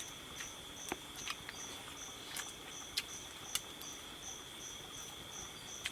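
Night insects calling: one keeps up a steady high trill while another pulses about two to three times a second. A few sharp clicks stand out, the loudest about halfway through.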